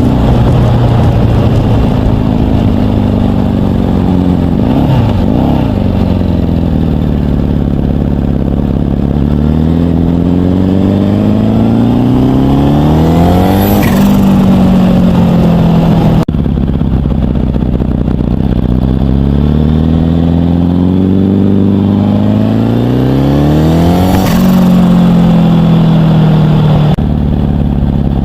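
Turbocharged VW T25 van engine with a Garrett turbo pulling on light throttle. Its pitch climbs slowly twice and falls away sharply each time the throttle is lifted, with a brief turbo flutter at each lift-off: compressor surge as the throttle closes on boost.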